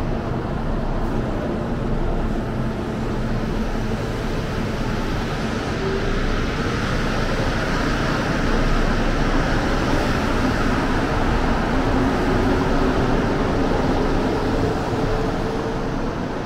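Bombardier NC-82 rubber-tyred metro train pulling out of the station and running past: a steady rolling rush with a rising motor whine, louder from about halfway through and easing near the end.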